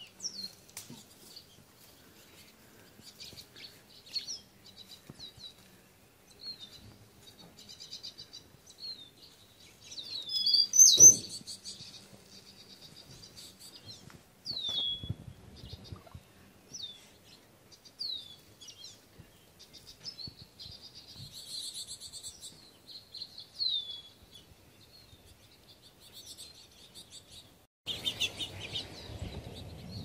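Small songbirds chirping and calling, with repeated short downslurred whistles. A sharp knock about eleven seconds in, and a rustling noise near the end.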